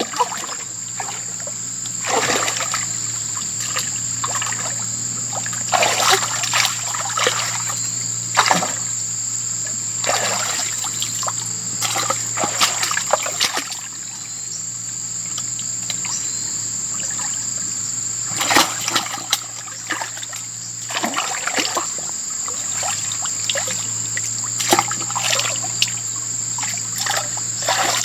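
Hands splashing and churning in shallow muddy water, groping by hand for fish, with short splashes every few seconds and water trickling between them.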